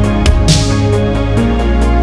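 Electronic background music with a steady beat and held synthesizer chords.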